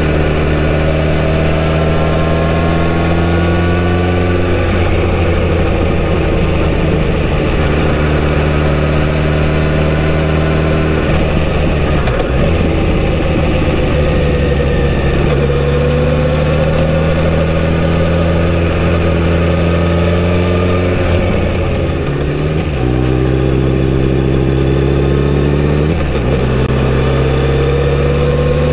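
Kawasaki Z900RS inline-four engine through its stock exhaust, heard from on board while riding. The engine note climbs slowly in each gear and drops back at each of several gear changes, with a short easing off of the throttle about two-thirds of the way through.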